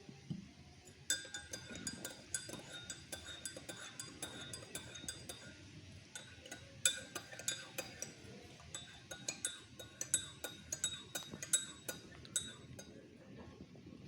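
A spoon stirring in a glass, clinking against its sides in a rapid, irregular run of ringing taps. The taps start about a second in and stop shortly before the end.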